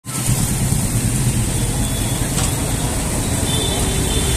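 Steady street-traffic rumble with an even hiss over it, the sizzle of jalebis deep-frying in a wide pan of hot oil.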